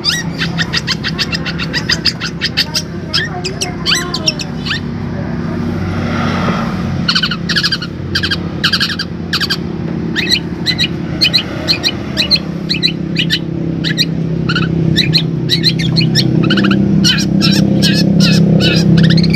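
Long-tailed shrike (cendet) giving runs of short, sharp chirps, several a second, mimicking sparrow calls, with a pause about five seconds in. A steady low hum in the background grows louder toward the end.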